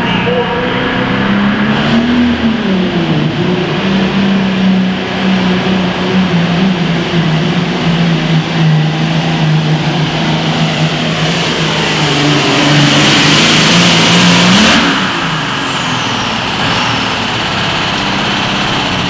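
Turbocharged diesel super farm pulling tractor running flat out down the track: a high turbo whistle sweeps up about two seconds in and the engine holds a steady high note. It grows louder toward the end of the run, then the throttle is cut and the turbo whistle falls away, leaving the engine running lower.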